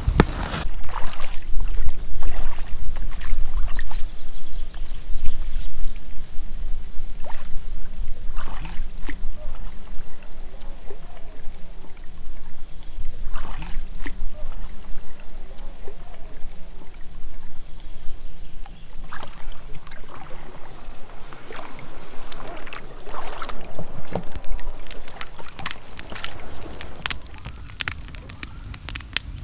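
Water sloshing and splashing against an inflatable packraft, with irregular splashes over a low steady rumble. Near the end, a campfire crackling.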